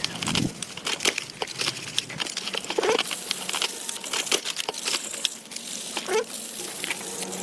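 Restoration work on motorcycle parts: irregular clicks, taps and short scrapes, with a steady hiss joining about three seconds in.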